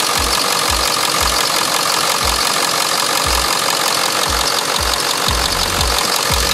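A Ford 7.3-litre turbo-diesel V8 idling steadily, running on its newly replaced high-pressure oil pump lines.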